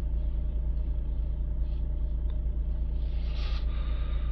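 Vauxhall Vivaro van's diesel engine idling steadily at about 850 rpm, a low even rumble heard from inside the cab.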